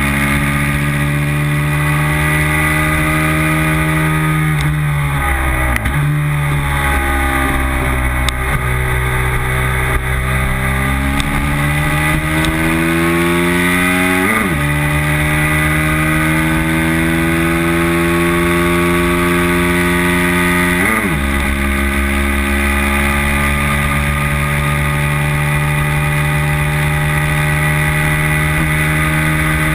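Race motorcycle engine heard from the bike's tail: the revs fall through downshifts about five seconds in, then climb under hard acceleration with two quick upshifts around halfway and two-thirds through, and hold high and steady near the end. Wind rush runs underneath.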